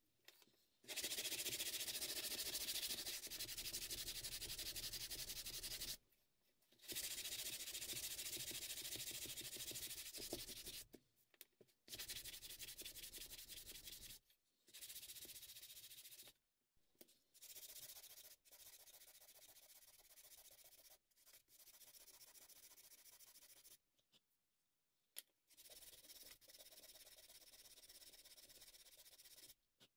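Hand sanding of a thin wooden razor-scale blank with a sanding block: quick back-and-forth scrubbing strokes in runs of a few seconds, broken by short pauses, fainter in the second half.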